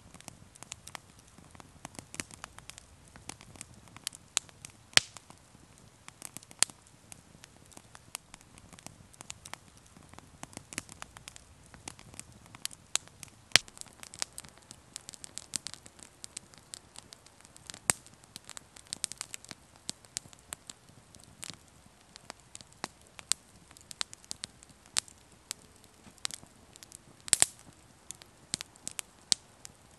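Split-log wood fire burning in a small folding fire pit: constant irregular crackling and sharp pops, with a few louder snaps scattered through and a quick cluster of them near the end.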